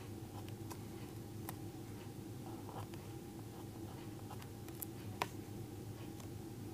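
Faint scratching of a pen on paper as letters are written by hand, over a steady low hum. A single sharp click comes a little past five seconds in.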